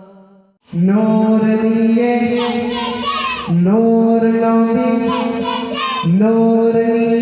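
A man singing a Bengali gojol (Islamic devotional song), holding long steady notes that step up in pitch, in phrases that begin about every three seconds. It starts suddenly about a second in, just after the earlier music fades out.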